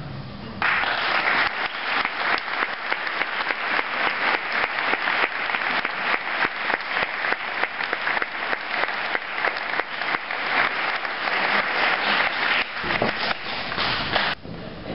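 Audience applauding, a dense steady patter of many hands clapping. It starts about half a second in and cuts off suddenly near the end.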